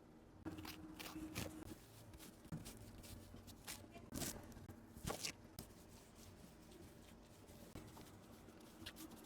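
Faint scattered rustles and light clicks, handling noises, with a low steady hum underneath.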